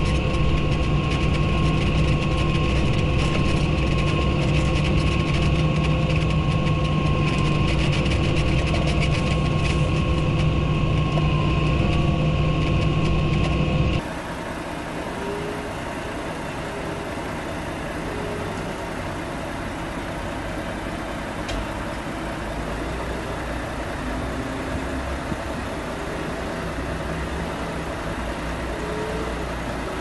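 Steady engine drone heard inside a farm machine's cab, with a thin steady high whine above it. About halfway through it cuts off abruptly to the quieter, steady running of a truck-mounted grab crane's engine.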